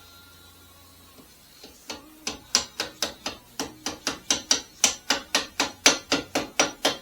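A hammer tapping rapidly, about twenty sharp blows at roughly four a second, starting about two seconds in and growing louder, during reassembly work on a band saw.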